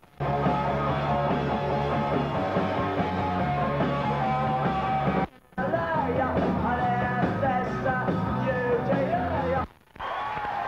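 Live punk rock band playing: electric guitar, bass and drums under shouted lead vocals. The sound cuts out completely for a moment twice, about five seconds in and again near the end.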